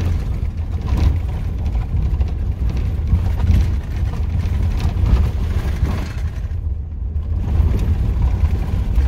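Cabin road noise from a 1997 Dodge Roadtrek campervan driving on a gravel road: a steady low rumble with scattered small clicks.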